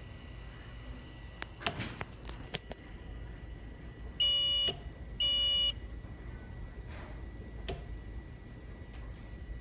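Two short, loud, high-pitched electronic beeps about a second apart, from the smoke-detector test setup, among faint clicks and a faint steady whine.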